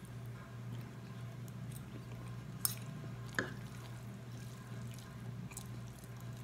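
Close-up wet chewing and eating sounds of saucy noodles, with small scattered clicks. Metal cutlery taps sharply on the plate twice, about two and a half and three and a half seconds in, over a steady low hum.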